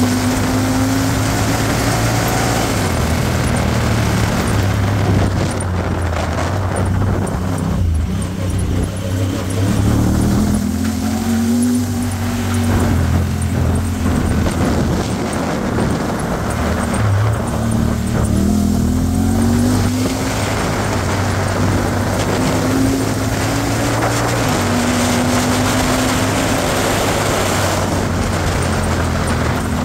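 Honda Talon 1000R side-by-side's parallel-twin engine running while driving a sandy wash, its pitch rising and dropping again and again as the throttle is worked, over a steady rushing noise of tyres and wind.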